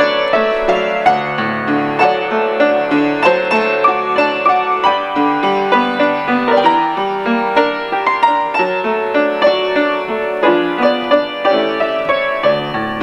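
Instrumental interlude of a worship song with no singing: a piano plays a melody over chords, with notes struck in a steady flowing rhythm.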